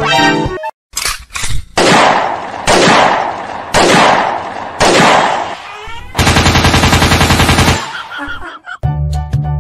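Gunfire sound effects: four loud single blasts about a second apart, then a rapid burst of automatic fire, about ten rounds a second for a second and a half.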